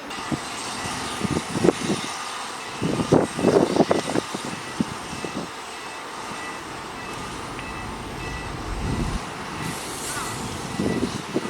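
Heavy earthmoving machinery at work: a diesel engine running steadily, with irregular clanks and knocks that bunch up about three seconds in, and a faint high beeping that repeats on and off.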